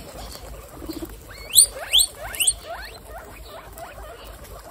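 Guinea pigs chewing lettuce with small crisp crunches. About a second and a half in, a guinea pig wheeks: three quick rising squeals, one after another.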